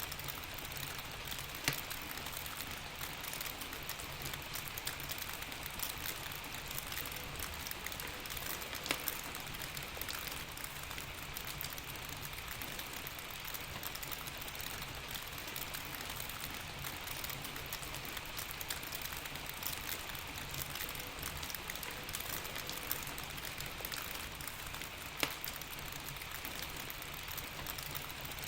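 Steady rain falling, an even hiss, with a few sharp crackling pops from a wood fire, the loudest three spread well apart.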